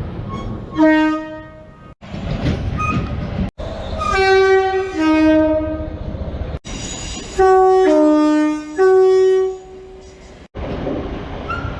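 Train horns sounding in a string of short clips joined by abrupt cuts: several loud horn blasts, some stepping between two pitches, with the rumble of moving trains between them.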